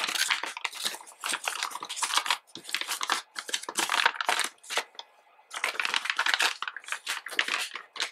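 Clear plastic resealable bag crinkling and rustling in irregular bursts as it is handled and a fabric face mask is slid into it, with a short lull about five seconds in.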